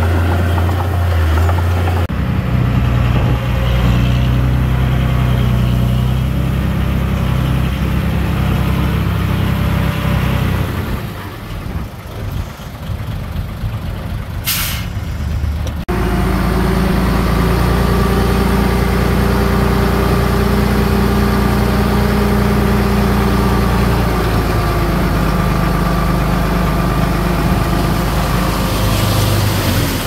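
Heavy diesel engines of a dump truck and bulldozer running, the engine note changing abruptly twice. About halfway through, a truck's air brake lets off a short sharp hiss.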